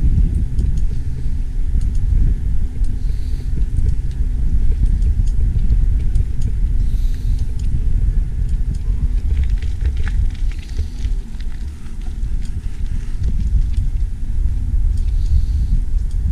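Steady low rumble of wind buffeting the microphone of a camera on a moving bicycle, mixed with road vibration from the ride. A few faint rattles come through near the middle.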